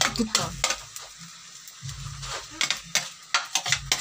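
Metal ladle scraping and clacking against a divided plate and the wok in quick, irregular strokes as sauce is scraped into stir-fried noodles, with a low frying sizzle underneath. There is a short lull about a second in.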